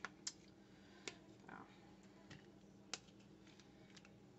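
Near silence: faint room tone with a low steady hum and about four soft, sharp clicks of a spoon and plastic cups being handled while pineapple chunks are layered into the cups.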